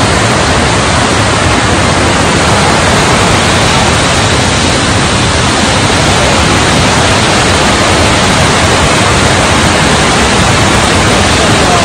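Torrent of muddy floodwater rushing through a street: a loud, steady rush of water noise with no breaks.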